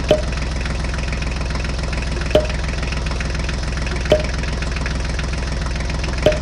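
A diesel tractor engine idling steadily, laid over a hand-pushed toy tractor. Four short, sharp clicks come about two seconds apart as miniature bricks are dropped into the toy's plastic trailer.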